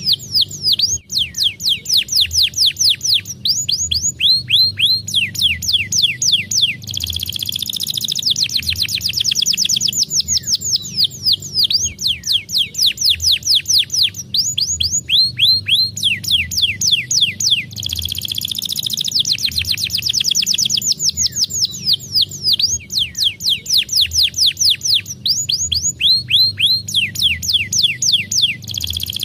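Canary singing without pause: long, high-pitched trills of rapid downward-sweeping notes, the tempo changing from phrase to phrase. The same run of phrases comes round again about every eleven seconds.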